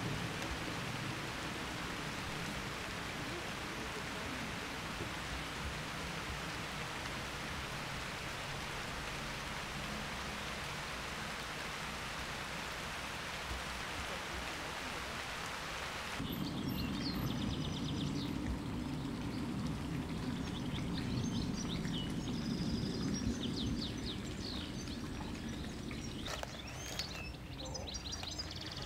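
Steady rain falling, an even hiss. About sixteen seconds in it cuts off abruptly to small birds chirping over a low steady rumble, and the chirping goes on after a second cut near the end.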